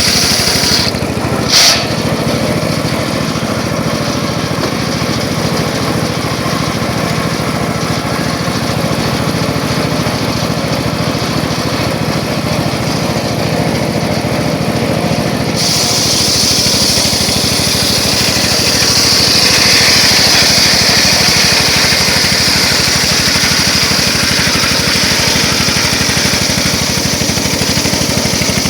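Circular saw running steadily, with a short sharp knock about a second and a half in. About halfway through, a louder high hiss joins the running sound and stays.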